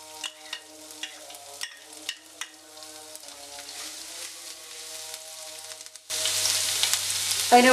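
Cumin, garlic and ginger frying in ghee in a nonstick pan, with a wooden spatula clicking as it stirs. For the first six seconds the sizzle is faint under soft background music. About six seconds in, the sizzle comes up suddenly loud.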